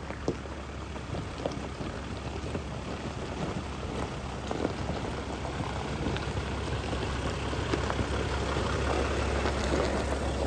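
Van driving slowly over a rough dirt track: a steady low engine and road hum with irregular crackling and small rattles from the tyres and body, slowly growing louder.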